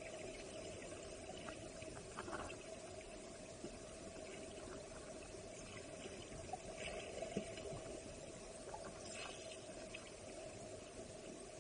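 Steady, muffled rush of creek water heard through a camera held underwater, with a few faint clicks and taps.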